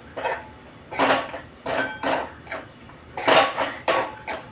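A spoon scraping and knocking against a cooking pan while stirring a thickening milk-and-strawberry mawa, in separate strokes about one or two a second.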